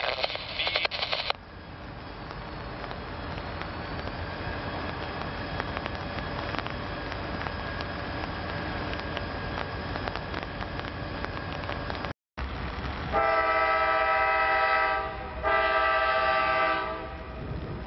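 Freight locomotive air horn sounding two long blasts near the end, over a steady hiss of pouring rain and the rumble of a train. A brief loud burst comes at the very start.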